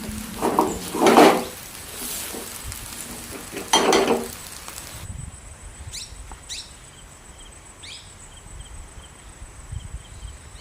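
Food sizzling as it fries in a pan, with two loud short sounds about one and four seconds in. The sizzling stops about halfway, leaving a quieter background with a few high, falling chirps like birdsong.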